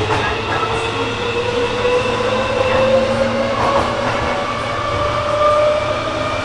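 Tokyo Metro 16000 series electric train, 2nd batch with a Toshiba IGBT inverter and permanent-magnet synchronous traction motors, accelerating, heard from inside the car. The motor and inverter whine rises steadily in pitch over the running and rail noise.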